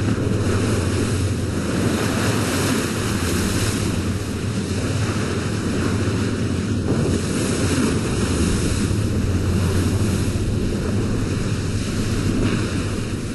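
Big ocean surf breaking, a steady heavy rush of water with wind on the microphone.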